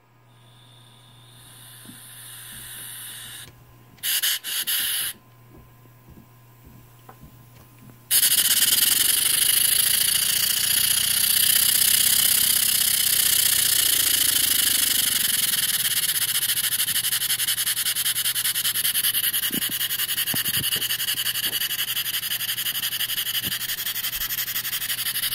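Stuart 10V single-cylinder model steam engine being run on compressed air: air hisses in faintly at first, with a couple of short loud hisses about four seconds in. From about eight seconds it runs, a loud steady exhaust hiss made of very fast, even chuffs.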